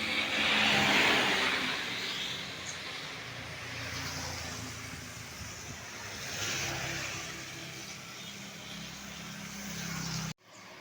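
Road vehicles passing close by with their engines running: one loud pass about a second in and another smaller one around six and a half seconds. The sound cuts off abruptly near the end.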